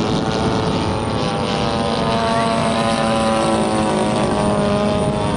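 Engines of radio-controlled model warplanes running as they fly over. Several engine tones overlap, each sliding slowly in pitch as the planes pass.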